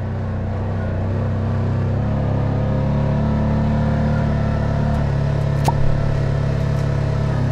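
Engine of an off-road buggy running steadily under way, its pitch stepping up slightly about two seconds in as it gathers speed. One brief clink comes near the six-second mark.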